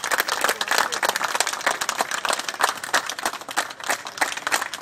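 A small group of people clapping their hands in applause, the claps thinning out somewhat near the end.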